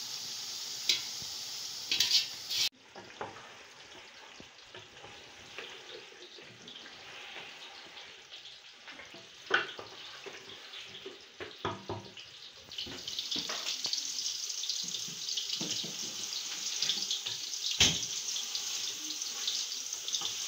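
Chicken sizzling as it fries in a metal cooking pot: a steady hiss that grows louder about two-thirds of the way through, with a few sharp knocks of a spoon against the pot.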